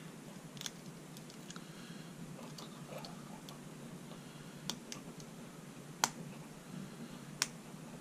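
A hook pick and tension bar working inside a brass pin-tumbler padlock: quiet, scattered metallic clicks and ticks as the pins are probed under tension, the sharpest click about six seconds in.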